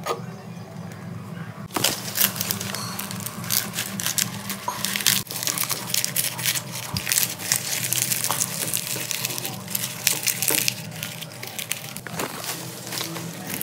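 Fresh banana leaves rustling and crinkling as they are folded and pressed down over a pot, a dense run of crackles starting about two seconds in.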